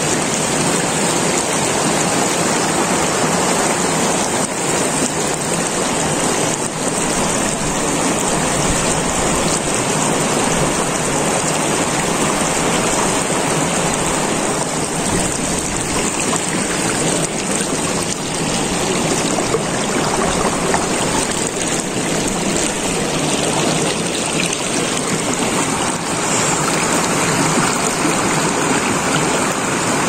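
Shallow, clear stream flowing steadily over stones and small riffles.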